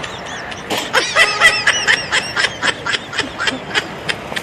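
High-pitched laughter: a fast run of short 'ha' bursts, about five a second, starting a little under a second in.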